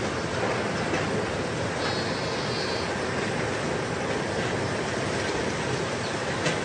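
Muddy floodwater rushing past buildings as a steady, unbroken rush of water noise, with a short click near the end.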